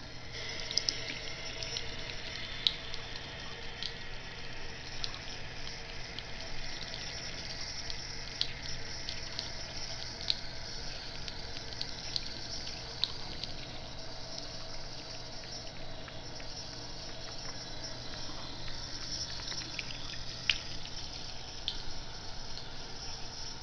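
Thin stream of water running from a bathroom faucet into a sink basin, steady throughout, with scattered drips and splashes as a cat drinks from the stream.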